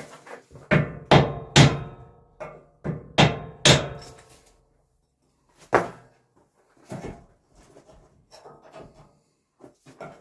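Hammer striking wood: a run of sharp blows with short ringing, three quick ones then four more, a single blow a couple of seconds later, and lighter knocks near the end.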